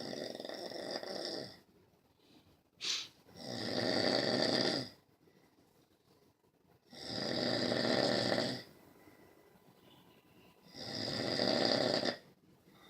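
Snoring in slow, regular breaths: four long snores about every four seconds, with a short sharp snort between the first two.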